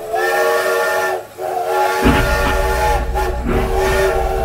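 Steam locomotive whistle sounding in long blasts with short breaks between them; about two seconds in, the low rumble of the moving train joins it.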